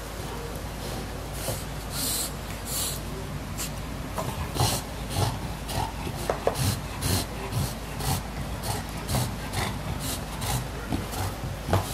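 English bulldog chewing and gnawing a plush toy: a run of short, rasping, wet mouthing sounds that settles into about two chews a second a few seconds in.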